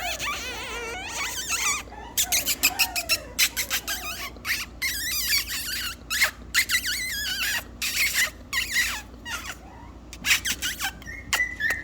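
Young puppy squealing and whining in high, wavering cries, over and over, mixed with many quick sharp clicks and taps as it plays.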